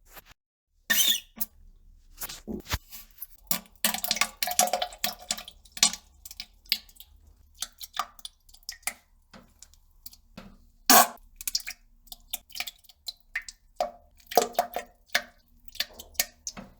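Irregular run of short wet plops, drips and squeaky sputters: poop and fart sounds dropping into toilet water, with one loud plop about eleven seconds in.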